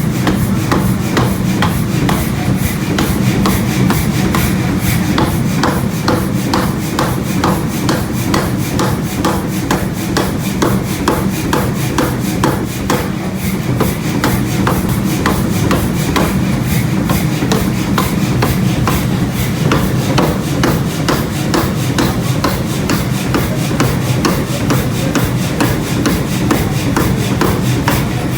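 Metal forging hammer striking steel in a quick, even rhythm of about three to four blows a second, over a steady low machine hum.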